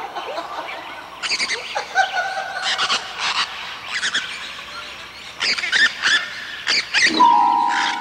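Birds chirping and calling in short, scattered bursts. Near the end, music with ringing mallet-struck notes begins.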